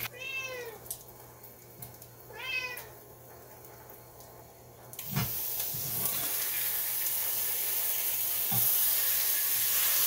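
Hash browns frying in a pan: a steady sizzle that starts suddenly about five seconds in and grows a little louder. Before it, two short high-pitched calls, one at the start and one about two and a half seconds in.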